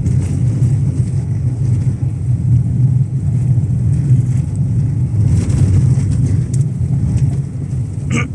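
Steady low rumble of a car's engine and studded winter tyres (Antares Grip 60 Ice 175/65 R14) driving in third gear on a snowy highway, heard inside the cabin. A few short hissing noises come about halfway through.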